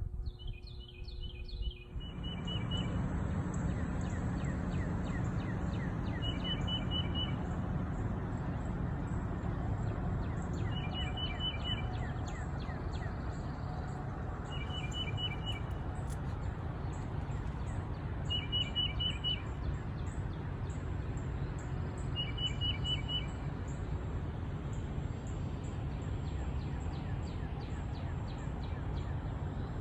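Birdsong: a short, quick run of high chirps repeated about every four seconds, with fainter high ticking calls between. Under it is a steady low background noise that comes in about two seconds in.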